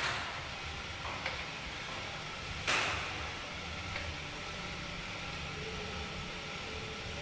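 Road bike on a direct-drive indoor trainer running steadily as the rider pedals, a low whirring hum. Two short rushing noises, one at the start and one about three seconds in, fade quickly over it.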